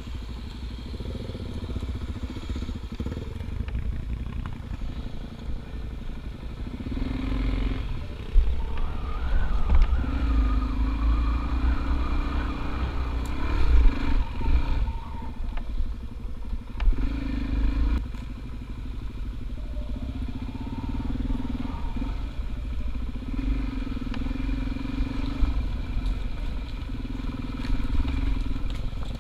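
A motor vehicle running along a road, a steady low rumble with an engine note that comes in and eases off several times.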